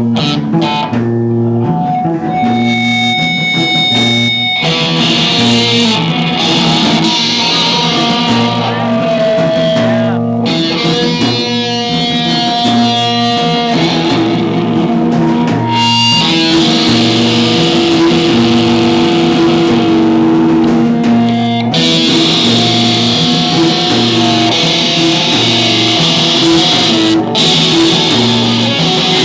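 A rock band playing live, led by guitar over a repeating bass line. The sound fills out and brightens about four to five seconds in, as the full band comes in.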